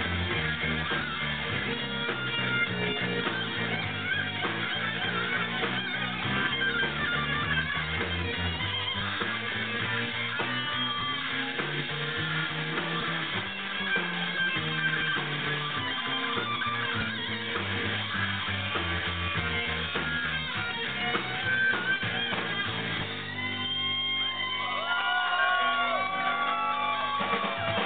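Live rock band playing electric guitars and drums. A high melody line with bending, sliding notes comes in near the end.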